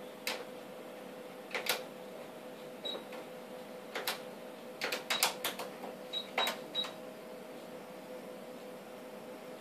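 Ultrasound machine console keys clicking irregularly as measurements are set, with a few short high beeps, over a steady faint hum.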